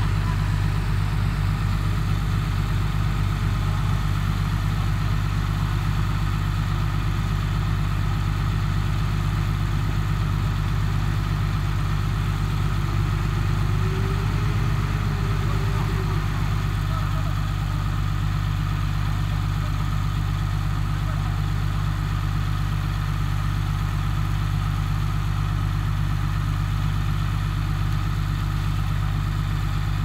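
Heavy construction machine's diesel engine running steadily with a deep, even drone.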